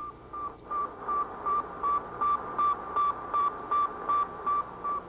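Sputnik 1's radio beacon as picked up on a receiver: an even run of short beeps at one pitch, about two and a half a second, over steady radio hiss.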